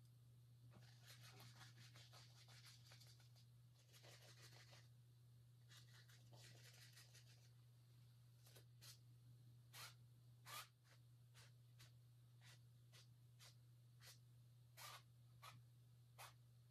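Very faint scrubbing of a paintbrush's bristles on a stretched canvas in three short stretches, laying in oil-paint clouds. Then a scatter of light clicks, over a steady low hum.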